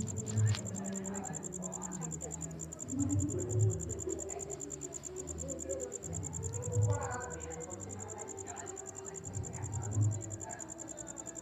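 A continuous, rapidly pulsing high-pitched insect trill, as of crickets, with soft low thuds every few seconds.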